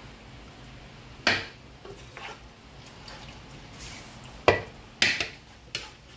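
A spoon knocking against a metal cooking pot while chicken masala is spooned over layered rice: about five short, sharp knocks, the loudest about four and a half seconds in.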